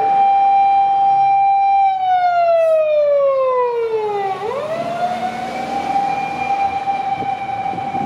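Japanese fire engine siren wailing: one long tone held high, gliding down over about two and a half seconds, then swooping back up about halfway through and holding high again.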